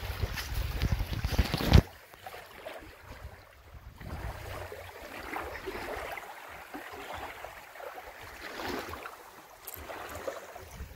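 Wind rumbling on the phone's microphone, ending with a sharp knock about two seconds in. After that, fainter wind and water noise.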